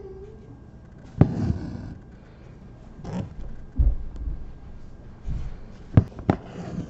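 Handling noise from hand embroidery: scattered light taps and knocks, ending in two sharp clicks in quick succession as the needle hand reaches in.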